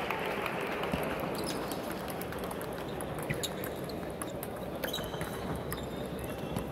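Table tennis rally: the ball clicking sharply off the paddles and the table in an irregular run of pops, over a steady background hum in a large hall.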